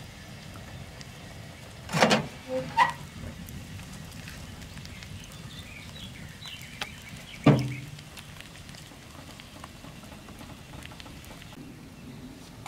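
Wood-burning cast-iron stove: the firebox door's metal latch and door clank open about two seconds in, with a second loud metal clank a few seconds later. Between them the wood fire crackles with faint pops.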